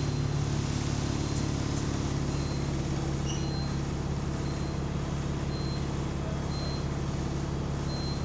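Diesel engine of a London bus running steadily with a deep exhaust rumble, from a bus with an exhaust leak. A faint short high beep repeats about once a second from about two seconds in.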